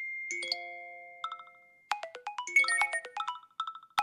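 Phone notification chimes: one alert tone rings and fades, then short pings come in quick succession and grow denser, overlapping toward the end.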